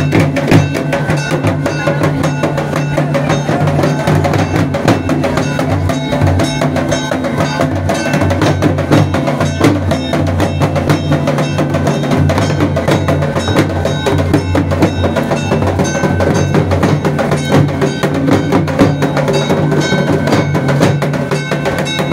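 Traditional Santal drumming on double-headed barrel drums, beaten by hand and with a stick in a fast, dense rhythm, with a metallic ringing over the beats.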